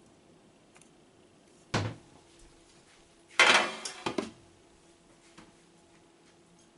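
Kitchenware knocking and clattering on a countertop: one sharp knock, then about a second and a half later a louder, longer clatter ending in two quick knocks.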